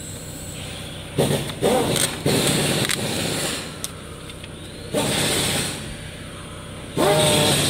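A paper label being peeled off a lacquered board and the board being handled, heard as several short bursts of rustling and scraping over a steady background hum.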